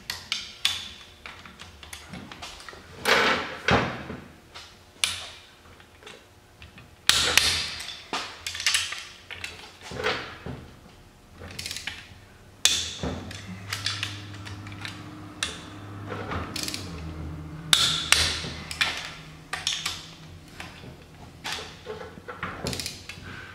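Socket wrench working on the bolts of a Polaris Sportsman 500 engine during reassembly: irregular ratchet clicks and metal tool clanks, with a few sharper knocks.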